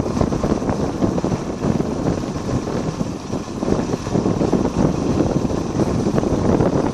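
Wind buffeting the microphone on a moving motorcycle, a steady rough rumble, with the bike's engine running under it.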